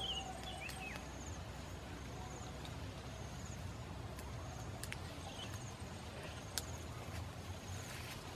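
Quiet outdoor ambience on grassland: a few short bird chirps near the start and again around the middle, a faint repeating insect-like trill high up, and a handful of sharp clicks from sticks being handled at a small smouldering fire.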